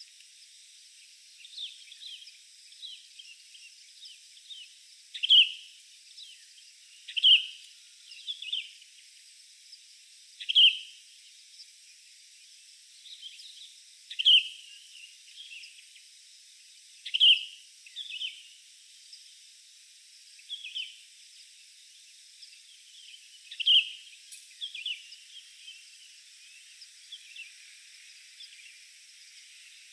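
A bird calling in the forest: short, sharp, high calls, a loud one every few seconds with softer ones between, over a faint steady hiss of outdoor ambience.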